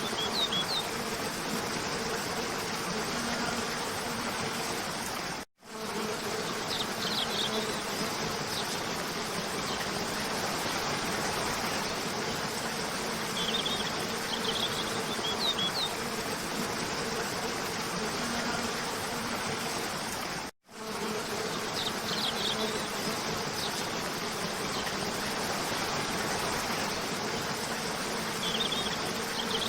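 Waterfall water rushing steadily, with a faint low buzz under it and short bursts of high bird chirps about every seven seconds. The sound cuts out for an instant twice, about five and a half and twenty seconds in.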